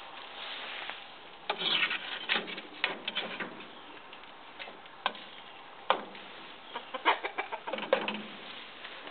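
Eggs sizzling in a metal frying pan over the fire of a small camp stove. A utensil scrapes and knocks against the pan in several short bursts.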